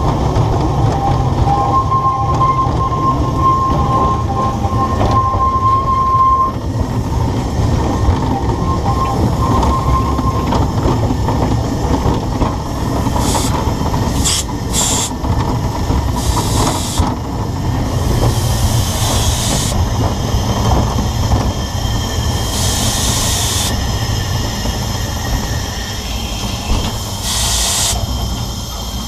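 A narrow-gauge steam train on the Ffestiniog Railway running with a steady low rumble. For the first few seconds there is a high steady wheel squeal, and later come several short bursts of steam hiss.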